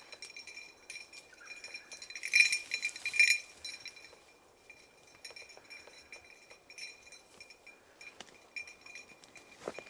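A small bell jingling steadily, as on a bird dog's collar, loudest about two to three seconds in, with twigs and brush crackling underfoot.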